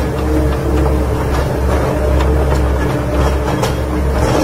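Heavy engine running steadily, a low drone with a few light clicks through it.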